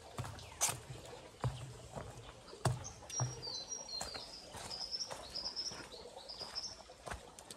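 Footsteps as irregular knocks with low thumps, and a small bird singing a run of short, high chirps through the middle.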